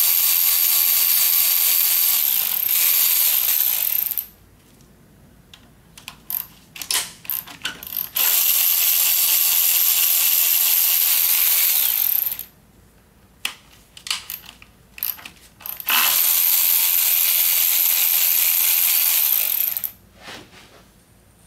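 Ratchet wrench on a long extension spinning out the small intake manifold bolts: three steady runs of rapid ratcheting, each about four seconds long, with short clicks of the tool and bolts in between.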